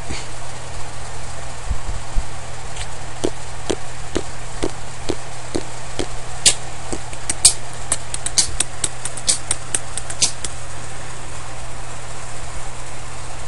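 A steady low hum with hiss underneath. A quick run of sharp clicks comes a little past the middle, with a few fainter clicks before it.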